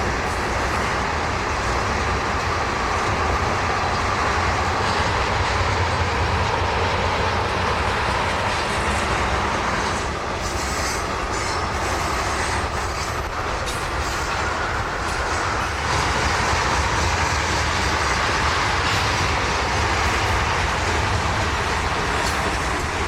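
Freight train cars rolling past on the rails with a steady, heavy rumble. There is some wheel squeal, and a cluster of wheel clatter comes about ten to fifteen seconds in.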